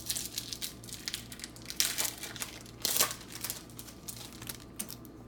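A trading-card pack wrapper being torn open and crinkled by hand: a dense run of crackles, with the loudest rips about two and three seconds in.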